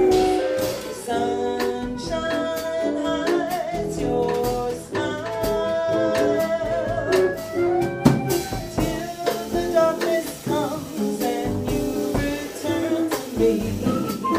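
A small jazz band playing live: a melody over guitar, double bass and a drum kit with cymbals.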